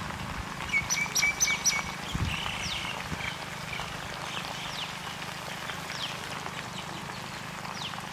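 Birds calling, with short falling chirps scattered throughout and a quick run of brighter calls about a second in, over a steady low hum.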